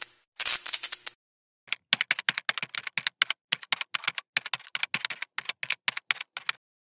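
Rapid keyboard typing sound effect: a short dense flurry of keystrokes, then after a brief pause an irregular run of quick clicks for about five seconds that stops abruptly.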